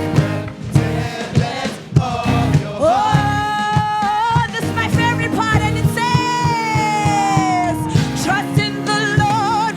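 Live gospel worship music: a band with drums playing under a lead vocal that holds long sung notes, one rising into a held note about three seconds in and another gliding down near eight seconds.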